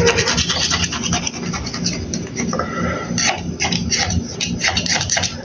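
Small table knife scraping rapidly and repeatedly against the inside wall of a metal ring cake pan, loosening a set tapioca cake from the sides.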